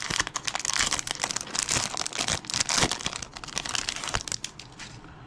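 Wrapper of a trading card pack being torn open and crinkled by hand: dense, irregular crackling that dies away about four and a half seconds in.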